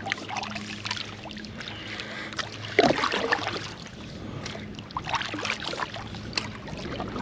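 Double-bladed kayak paddle dipping into calm lake water: repeated splashes and drips as the blades go in and come out, with light knocks, a louder burst about three seconds in, and a low steady hum underneath.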